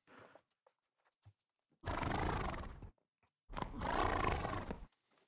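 A horse whinnying twice, each call about a second long with a wavering pitch.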